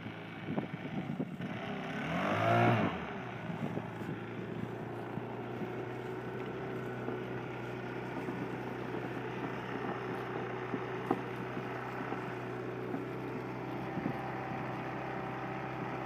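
Stihl BR600 backpack leaf blower engine, rebuilt to drive a manure vacuum, revving up briefly about two seconds in and then running steadily while it draws air through a PVC suction pipe. A few knocks come early and single clicks later.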